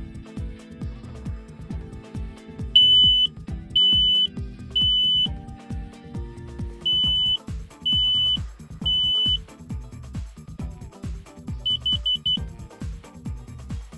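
Smoke alarm beeping in its piercing three-beep pattern, twice over, then four quick short beeps near the end. Background music with a steady beat plays underneath.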